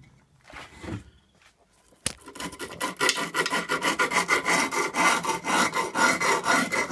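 Metal Allen key scraped rapidly back and forth over sandpaper-like scooter grip tape along the deck's edge, scoring the outline where the tape will be trimmed. It is quiet at first, and the scraping starts about two seconds in, several strokes a second.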